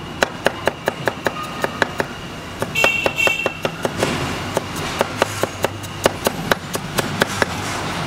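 Chinese cleaver mincing pickled radish on a thick end-grain wooden chopping block: a rapid, even run of knocks, about five strokes a second.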